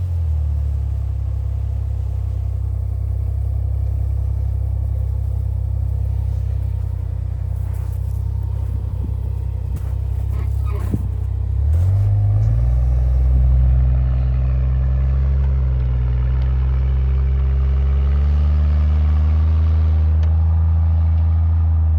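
Jeep engine running under load on a rough, snowy off-road climb, a steady low drone; about twelve seconds in it revs up and holds a higher pitch. A few faint knocks come through around the middle.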